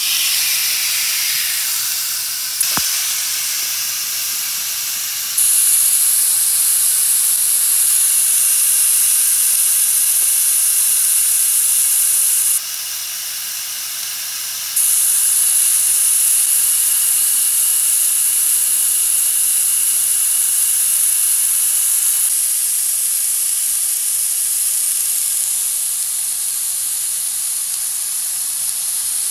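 Thinly sliced ribeye steaks sizzling on the hot grill plate of a Ninja Woodfire electric grill, a loud steady hiss. A single click comes early, and the hiss jumps abruptly up or down in level several times.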